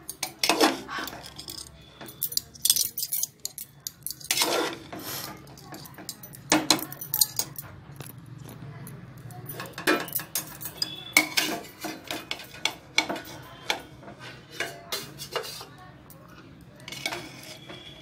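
Metal spoon scraping and clinking against the inside of an aluminium pressure cooker as cooked biryani rice is stirred, in irregular knocks and scrapes.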